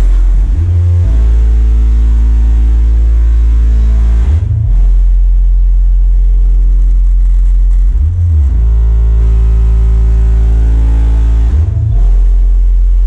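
A rap track played very loud through a car sound system with heavy, sustained sub-bass. The bass line shifts in repeating phrases about every four seconds.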